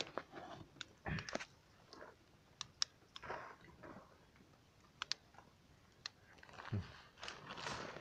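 Faint scattered clicks and crackles of hands handling a clump of soil and roots against plastic mulch film.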